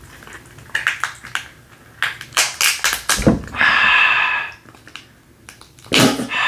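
Close-up cracking and wet crunching as sauce-coated shellfish shells are pulled apart by hand, a quick run of sharp clicks and snaps. A short hissing sound comes about four seconds in, and again near the end.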